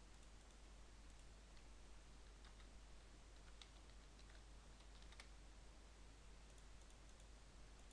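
Faint computer keyboard keystrokes, a few scattered taps over a steady low hum and hiss.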